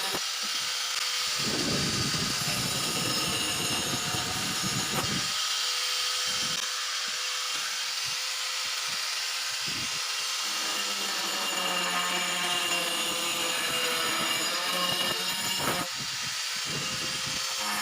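A small power tool running steadily with a high-pitched whirring hiss.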